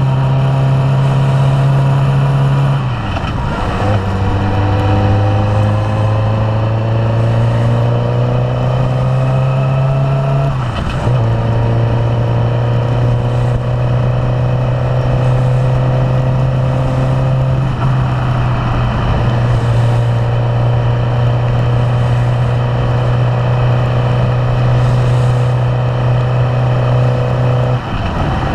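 Suzuki GSX-R600 inline-four engine running steadily under way. Its note climbs slowly and drops back sharply a few times, about every seven or eight seconds.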